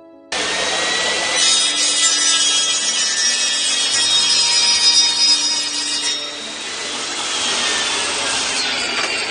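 Table saw cutting a plastic interlocking garage floor tile: the blade's noise comes in abruptly, is loudest and harshest for about five seconds while the tile is fed through, then eases as the saw runs on with less load.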